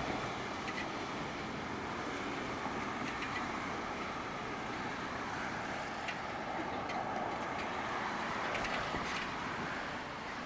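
Car driving slowly, with steady road and engine noise heard from inside the cabin.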